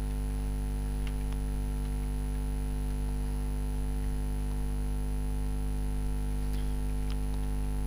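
Steady electrical mains hum with a stack of overtones, running at an even level, with a few faint clicks about a second in and again near the end.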